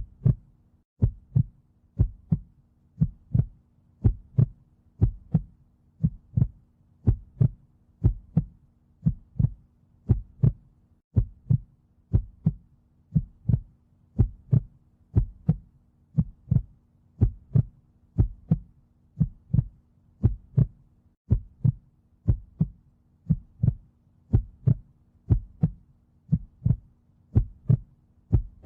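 Heartbeat sound, a steady lub-dub double beat about once a second, deep and thudding.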